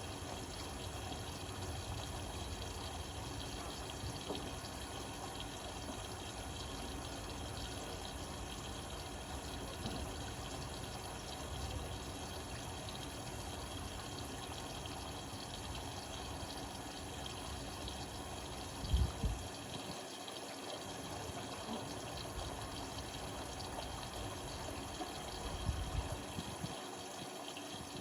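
Water running and sloshing inside an Indesit Innex BWE 91496X front-loading washing machine as it fills and washes, with two short low thumps, one about 19 seconds in and the other about 26 seconds in.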